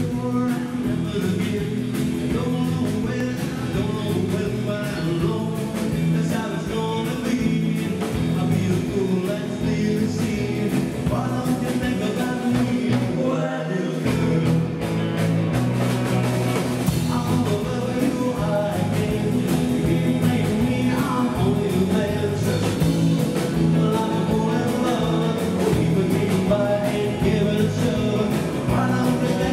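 Live rock and roll band playing: electric guitars, bass guitar and a drum kit, with a man singing.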